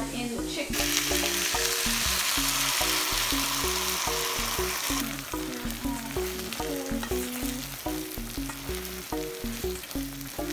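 Food sizzling loudly in a hot pan, the sizzle dropping off suddenly about five seconds in and going on more faintly, over background music with a steady beat.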